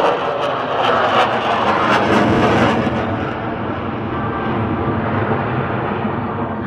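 Jet noise from an F-22 Raptor's twin Pratt & Whitney F119 afterburning turbofans: a loud, steady rush that loses its hissing top end after about three seconds.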